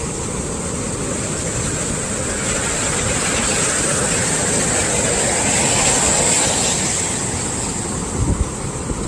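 Heavy swell surf breaking and washing onto the beach, a continuous rush of water. It builds from about two seconds in to a peak near six seconds, then eases off. Wind buffets the microphone with low rumbles.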